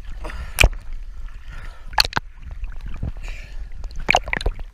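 Small waves sloshing over a waterproof action camera held at the water surface, with a steady low rumble and sharp splashes slapping the housing about half a second in, twice around two seconds, and a few times near the end.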